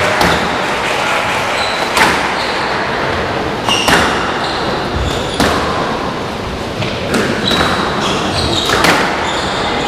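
Squash rally: the ball is struck by racquets and smacks off the walls, a sharp crack every one and a half to two seconds, while the players' court shoes give short squeaks on the wooden floor.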